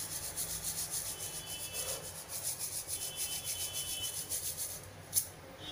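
Grated potato deep-frying in hot oil in a steel kadhai, sizzling steadily with a fine crackle; one short clink about five seconds in.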